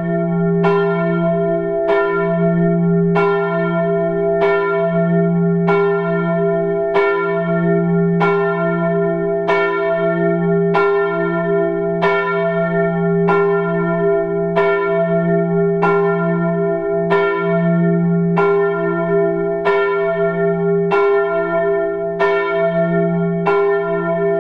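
A church bell tolling steadily, struck about once a second, each stroke ringing on into the next.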